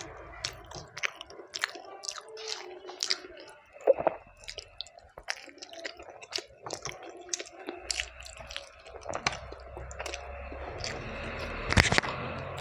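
Close-up chewing and mouth sounds of a person eating a spiced rice and chicken curry meal: wet, squishy chewing with many quick smacking clicks, one louder about four seconds in and another near the end.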